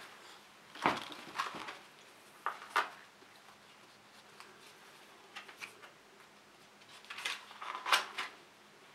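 Scattered clacks and knocks of hard plastic cat-toy track pieces being bumped and shifted, in several short clusters with quiet gaps between.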